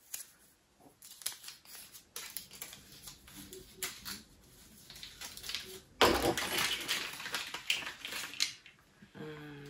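Hands handling small sewing-machine accessories and their packaging: light clicks and taps, then a louder rustle about six seconds in.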